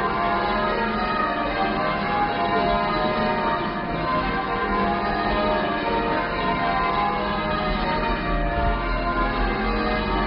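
Church bells ringing: a peal of many bells in continuous overlapping strokes, with no pause.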